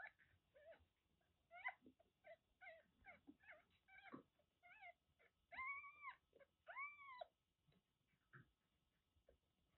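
Newborn kittens mewing and squeaking faintly while jostling for teats as they nurse: many short high squeaks, with two longer cries that rise and fall just past the middle.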